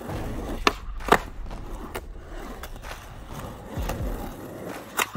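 Skateboard wheels rolling over rough asphalt, with sharp clacks of the board about a second in and again near the end.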